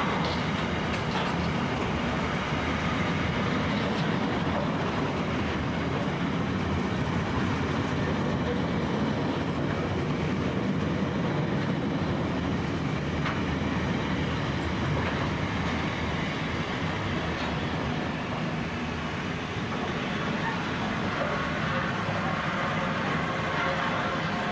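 Container freight wagons rolling slowly past on steel rails: a steady rumble of wheels on track with occasional faint clicks.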